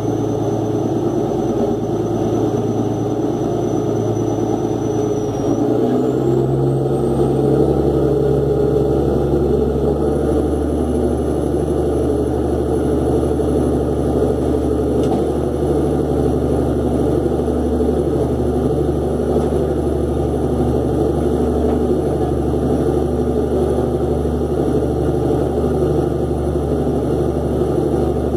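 Fishing boat's inboard engine running steadily under way, its sound deepening about six seconds in and then holding steady.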